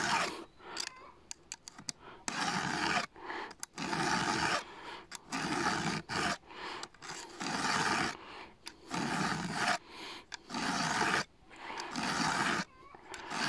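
Round file rasping by hand across a chainsaw chain's cutter tooth to sharpen it: slow, even strokes, about nine, roughly one every second and a half.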